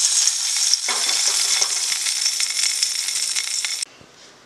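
Hot oil tempering of mustard seeds and curry leaves sizzling in a pot of curry as it is stirred with a ladle, with small scraping clicks. The sizzle cuts off suddenly near the end.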